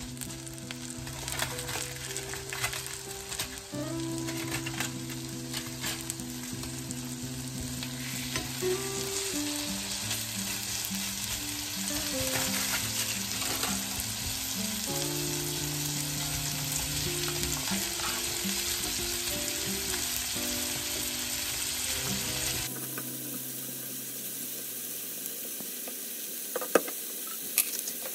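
Beef steaks sizzling in hot oil in a frying pan, a steady crackling hiss. Background music plays over it until about 23 seconds in. After that the sizzle continues alone, with a few sharp clicks near the end.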